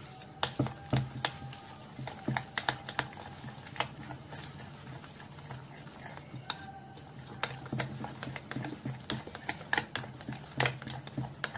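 Metal spoon stirring a thick flour-and-besan batter in a bowl, knocking against the bowl's sides in irregular sharp clicks, fewer in the middle of the stretch.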